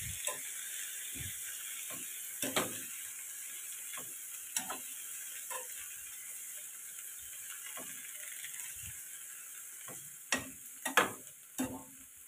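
Cauliflower and shrimp stir-frying in hot oil in a pan, sizzling steadily. A spatula scrapes and knocks against the pan now and then, with several knocks close together near the end.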